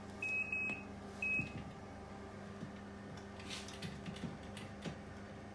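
A high electronic beep sounds twice in the first second and a half over a steady low hum. Later come scattered short scraping strokes, a block of cheese being rubbed on a grater.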